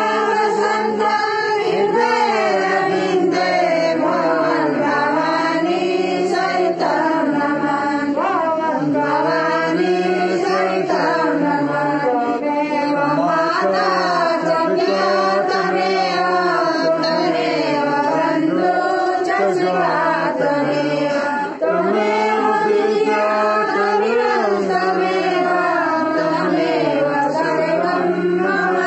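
A group of women singing a devotional chant together, in continuous phrases without a break.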